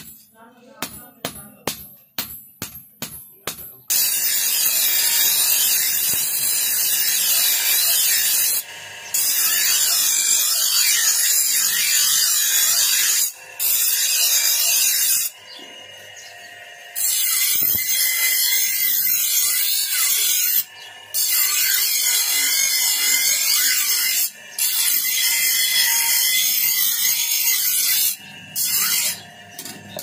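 Hand hammer striking a steel sickle blade on an anvil block, about three ringing blows a second. About four seconds in it gives way to an electric bench grinder grinding the sickle's steel blade in long harsh passes, with short pauses where only the grinder motor hums.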